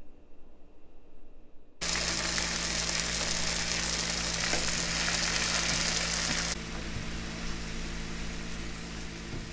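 Food sizzling in hot oil in a frying pan, starting suddenly about two seconds in, with a steady low hum beneath. The hiss eases somewhat about two-thirds of the way through.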